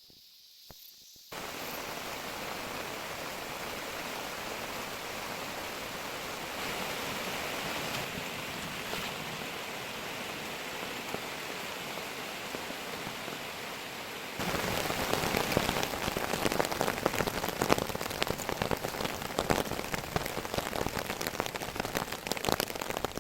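Steady rain falling, starting abruptly about a second in. About 14 seconds in it turns louder and closer, with many sharp drops striking a surface.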